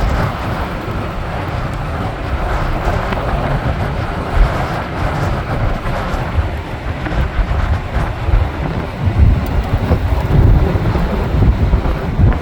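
Strong gusty wind buffeting the microphone: a heavy rumble that swells and drops irregularly, under a steady rushing hiss.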